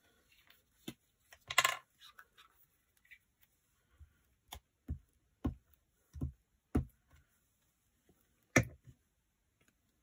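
Hands handling paper on a cutting mat: a short rustle of paper about a second and a half in, then scattered light taps and knocks of paper and fingers set down on the mat, with one louder knock near the end.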